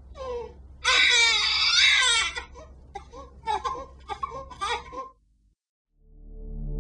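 Baby crying: a long, loud wail about a second in, then shorter broken sobs that stop about five seconds in. Music fades in near the end.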